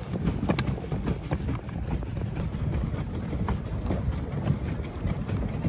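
Wind rumbling on the microphone over water lapping and splashing around a pedal boat on a choppy lake, with scattered small splashes.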